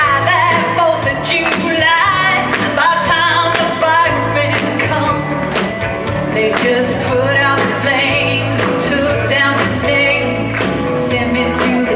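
A woman singing into a microphone over amplified backing music, her voice gliding and bending in pitch over a steady beat.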